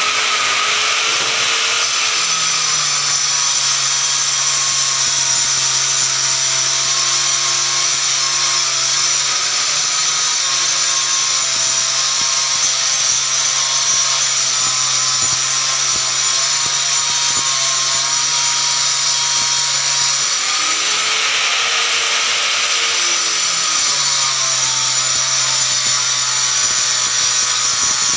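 A handheld electric power tool runs continuously as it is pushed along a wooden board. Its motor note shifts briefly about twenty seconds in, then settles again.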